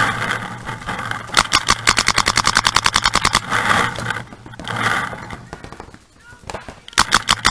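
Paintball markers firing in rapid strings of about a dozen shots a second: a long string from about a second and a half in to past three seconds, and another near the end.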